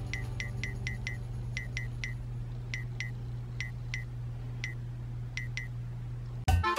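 A steady low hum with light clicks at uneven intervals, a few a second; upbeat music starts at the very end.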